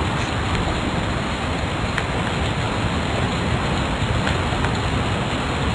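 Steady, loud hiss with no speech, a faint click or two in it.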